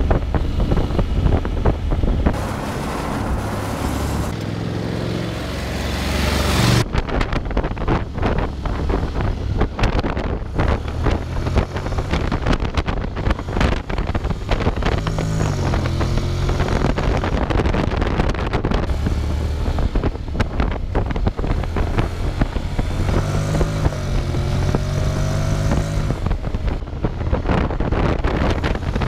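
Honda X-ADV's 745 cc parallel-twin engine under way, its pitch climbing and dropping back several times as it speeds up and shifts, with heavy wind buffeting on the helmet-mounted action camera's microphone.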